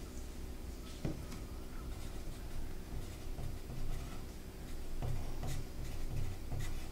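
Pencil scratching on paper in short, irregular strokes, with a small knock about a second in, over a faint steady room hum.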